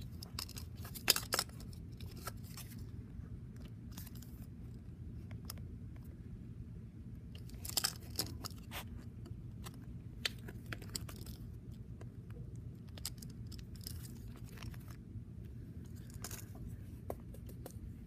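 Close handling noise: irregular bursts of rustling, crinkling and light clicks as objects are moved against the microphone, loudest about a second in and again around eight seconds. Under it a steady low background rumble.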